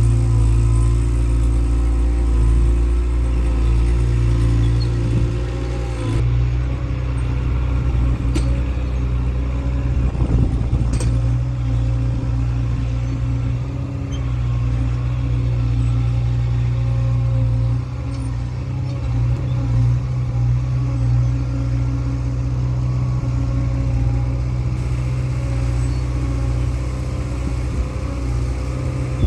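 Skid steer engine running steadily, its note shifting a couple of times, with two short sharp knocks around ten seconds in.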